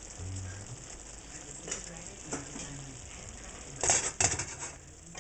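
A pan of shrimp and snow peas in coconut cream sauce sizzling and bubbling, with a few light clicks of a utensil against the pan. About four seconds in comes a burst of clattering and scraping as the pan is shaken on the electric coil burner.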